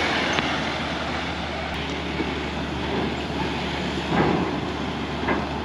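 Engines running at a ferry loading ramp: a steady low hum under outdoor noise, with a louder rumble swelling and fading about four seconds in, as of a vehicle moving up the ramp.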